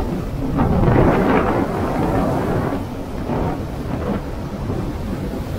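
Wind buffeting the microphone over the rumble of a fishing boat running through choppy water under power, its hull slapping and throwing spray.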